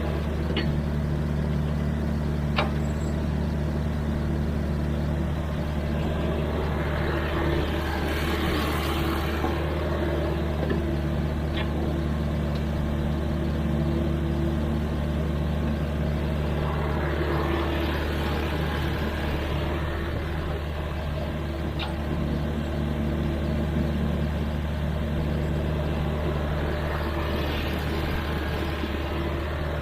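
Sany mini excavator's diesel engine running steadily at working speed, with brief swells of noise about every nine seconds and a few sharp clicks.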